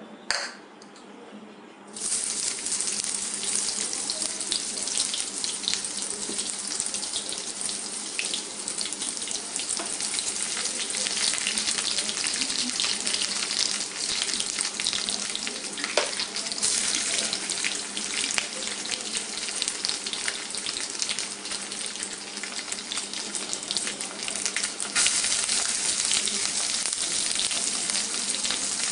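Sliced onions sizzling and bubbling in hot oil in a wok. The sizzle starts suddenly about two seconds in, after a short click, and grows louder again near the end.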